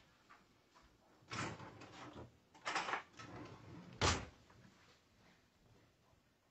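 Kitchen cabinet being opened and shut: two short scraping noises, then a sharp knock about four seconds in as it closes.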